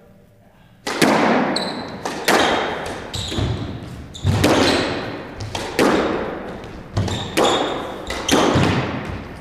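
A squash rally: the ball cracks off rackets and the court walls about once a second, starting about a second in, each hit echoing in the enclosed court. Short high squeaks of shoes on the wooden floor come between the hits.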